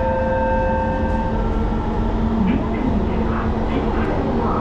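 Singapore MRT train running, heard inside the carriage: a steady low rumble of the train on the rails, with a few steady whining tones that stop about a second and a half in.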